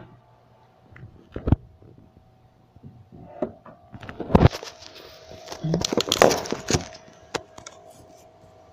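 Handling noises as a phone camera is moved and items are set on a counter: scattered knocks and clicks, with a stretch of rustling and clatter about four to seven seconds in, over a faint steady hum.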